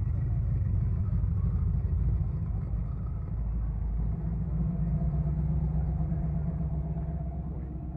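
A car engine running at low speed, its sound mostly deep and low. About halfway through, a steadier pitched engine note comes in and holds, then eases off near the end.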